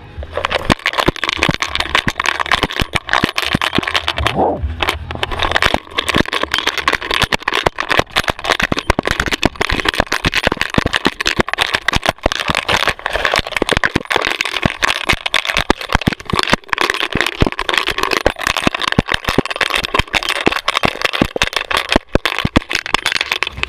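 Rapid, continuous rattling and knocking of a GoPro camera strapped to a running dog, the camera mount jolting with every stride.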